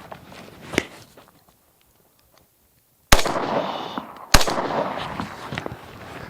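Two loud gunshots about a second and a quarter apart, each trailing off with a ringing echo. A smaller knock comes a second or so before them.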